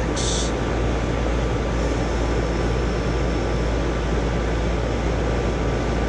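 Residential R-410A air-conditioning condensing unit running steadily, compressor and condenser fan together, with a steady low rumble.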